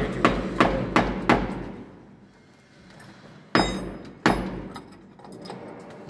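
Hammer blows, about three a second over the first second and a half, then a pause and two louder, ringing strikes about three and a half and four seconds in.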